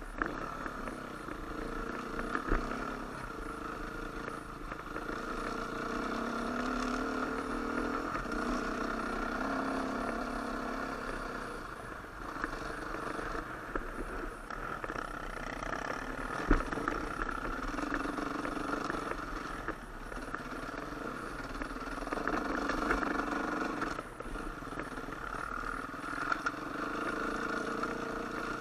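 KTM 350 four-stroke dirt bike engine running under constantly changing throttle on a rough trail, its pitch rising and falling every few seconds. Two sharp knocks stand out, one a couple of seconds in and one past the middle.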